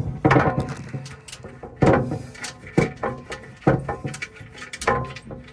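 Metal clunks and knocks, about five, roughly a second apart, from a steel skid plate and its bolts being handled under a vehicle while a bolt is started by hand.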